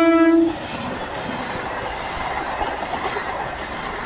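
Locomotive horn holding one steady note that cuts off about half a second in, then the steady noise of a passing train's wheels running over the rails.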